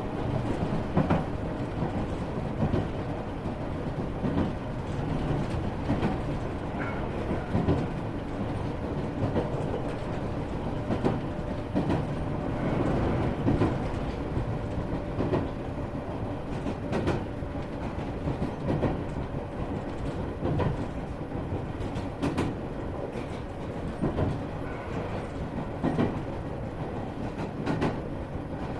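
Iyotetsu 3000 series electric train running at speed, heard from inside the motor car: a steady rumble of wheels on rail, with clickety-clack rail-joint knocks about every second and three quarters.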